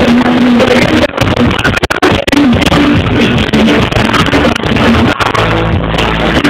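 A German song played loud for dancing, picked up by a phone's microphone with a harsh, distorted sound.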